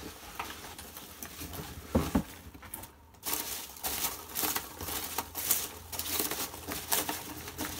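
A shipping box being tipped out: packing material rustling and crinkling as the contents spill, with a sharp knock about two seconds in and a busy run of clatter and rustle from a little after three seconds on.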